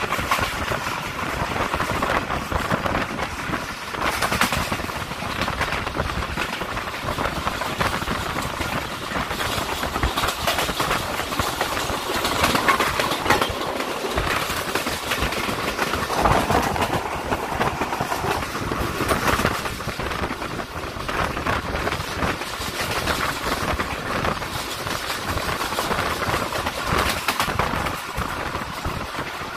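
Passenger train running at speed, heard from aboard: a steady rush of wheel and track noise with irregular clatter from the wheels on the rails.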